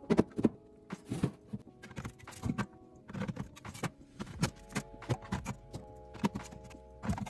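Irregular clicks and knocks of household items being handled and set down during a restock, over soft background music with held tones.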